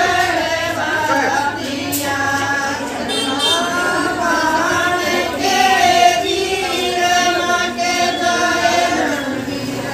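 A group of women singing a Haryanvi wedding folk song (bhat geet) together, with long held, gliding notes.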